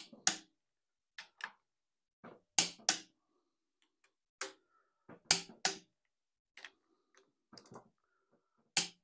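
Click-type torque wrench breaking over on the cylinder head bolts at the 75 setting. Four sharp double clicks about three seconds apart, one as each bolt reaches torque, with fainter ticks between.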